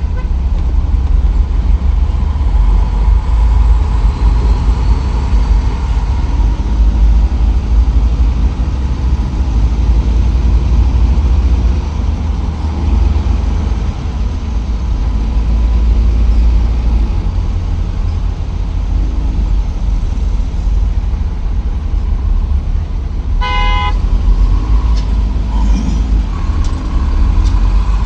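Danfo minibus and surrounding traffic running in slow city traffic, a steady low engine rumble. A short vehicle horn toot sounds about three-quarters of the way through.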